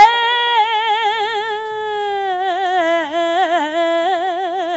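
A woman singing a long drawn-out note in Suzhou tanci (pingtan) style, with a wide, even vibrato. The pitch sinks slowly through the phrase.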